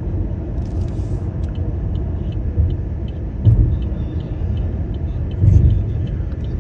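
Car driving: a steady low road and engine rumble, with two brief louder bumps about three and a half and five and a half seconds in.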